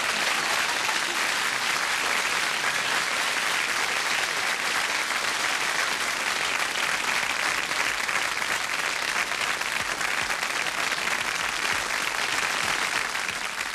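Studio audience applauding steadily, the clapping beginning to fade near the end.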